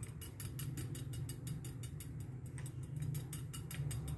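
Metal fork tines pricking a thin rolled disc of dough against a stone counter, a rapid, even run of light ticks, about seven a second. The dough is being docked with holes so it will not puff up when cooked.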